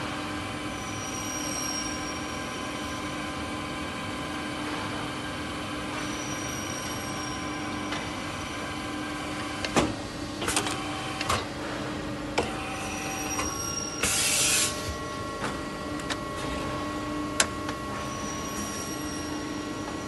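Aluminium window corner crimping machine running with a steady hum. Sharp metal knocks and clatter come from the aluminium profiles being set and clamped in it, and a short hiss sounds about two-thirds of the way through.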